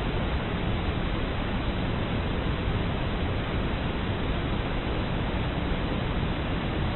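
Steady, loud rushing noise, heaviest in the low end, with no distinct knocks or voices in it.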